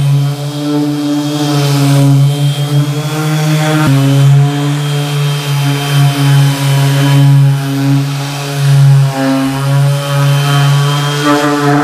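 Bosch GEX 125-1 AE 250-watt random orbit sander running on a pine plank: a steady motor hum at one pitch whose loudness swells and dips as the pad is pushed across the wood.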